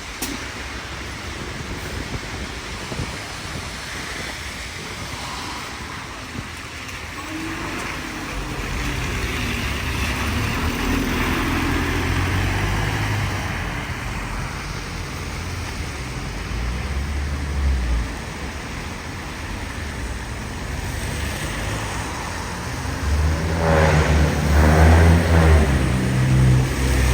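Buses and road traffic passing; a heavy engine swells and fades in the middle, and near the end a bus pulls away with its engine pitch rising.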